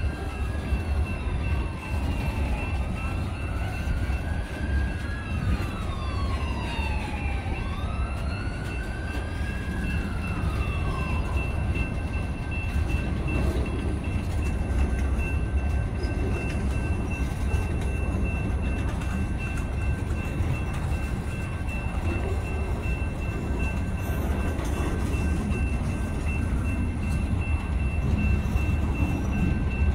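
Loaded freight boxcars rolling past at close range: a steady low rumble of steel wheels on rail. For roughly the first eleven seconds a siren wails in the background, rising and falling three or four times.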